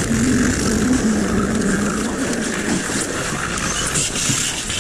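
A motor vehicle driving with its engine running steadily, a low wavering hum over road and wind noise, with the hum fading about three seconds in.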